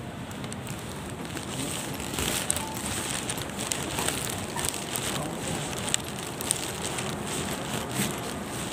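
Handling noise from a phone carried while walking: the microphone rubs and knocks against clothing and a backpack, giving scattered sharp clicks over a steady background hiss.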